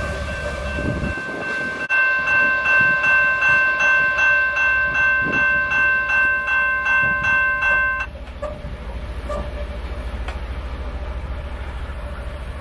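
Railway level-crossing bell ringing a little more than twice a second, then stopping abruptly about eight seconds in. Before it there is the rolling noise of a freight train's wheels on the rails, and after it a low steady rumble of the receding train.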